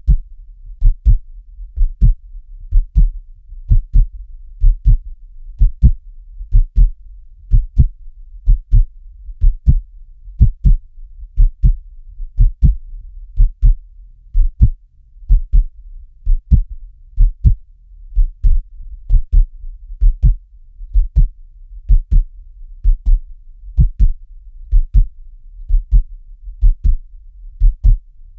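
Heartbeat sound effect: a steady lub-dub, a double thump repeating about once a second, deep and low.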